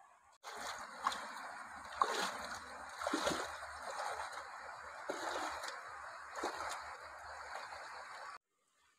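Water sloshing and splashing around a person's legs as they wade through a shallow river, with several louder splashes among the steady swishing. It starts suddenly and cuts off abruptly near the end.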